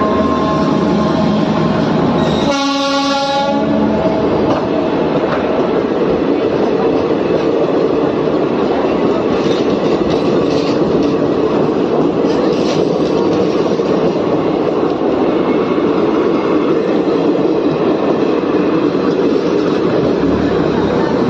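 Indian Railways train running on the rails with a steady loud rumble. Its horn is fading out as the sound begins and sounds again in a blast of about a second and a half, two and a half seconds in.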